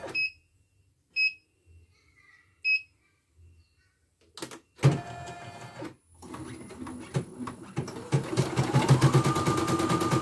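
CNY E900 embroidery machine under test after a new motor and power supply: three short beeps, then the machine starts and stops, and from about eight seconds in it settles into fast, even stitching with a motor whine that rises and then holds steady. It runs smoothly.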